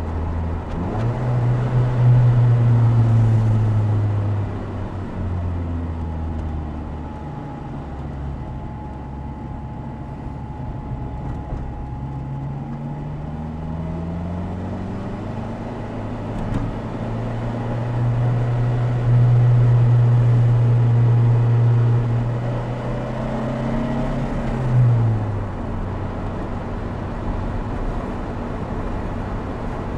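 Opel Speedster Turbo's mid-mounted 2.0-litre turbocharged four-cylinder engine pulling up a mountain road, heard from right behind the seats of the open car. The engine note climbs and holds under throttle early on and again in the second half, with a steady rise in between, and drops back sharply each time the throttle comes off. Tyre and wind noise runs underneath.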